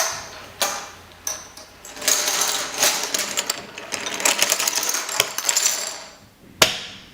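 Poker chips and playing cards handled on a table: a few sharp clicks, then several seconds of rapid clattering, ending with one more sharp click.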